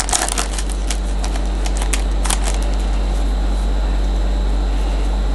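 Steady low hum and hiss, with a few short crinkles and rustles in the first couple of seconds from a foil trading-card pack and its cards being handled.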